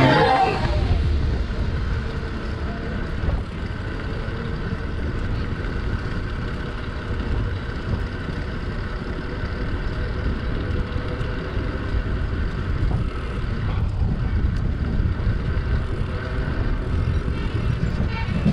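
A vehicle running steadily, a constant low rumble with road or wind noise over it.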